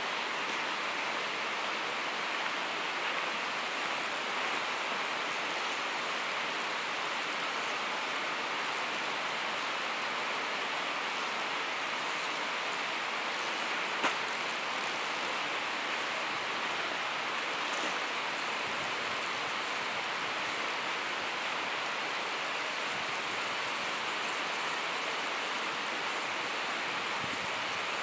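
Steady rushing of flowing river water, an even hiss that does not change, with a single sharp click about halfway through.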